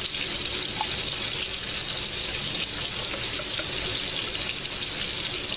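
Boneless pork steaks sizzling steadily in a frying pan as they brown.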